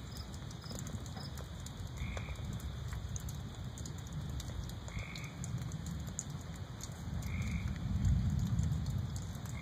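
Low rumble of distant thunder that swells about three-quarters of the way through, with a frog calling a short note about every two and a half seconds.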